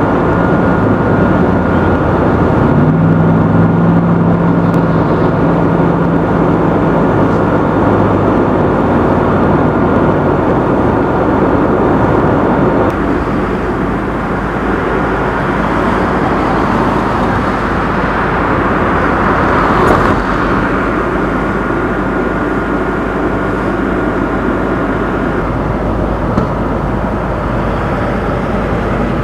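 Fire engine's diesel engine running steadily, with a deeper engine hum louder for the first dozen seconds and a faint steady high whine over it.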